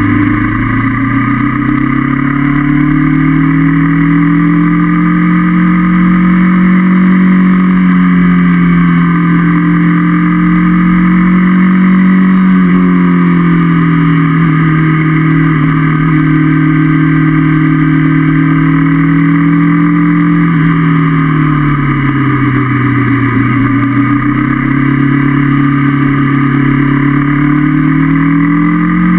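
Honda CB500F's parallel-twin engine running under way, its pitch climbing and falling smoothly as the bike speeds up and eases off. The note drops to its lowest about twenty-three seconds in, then climbs again.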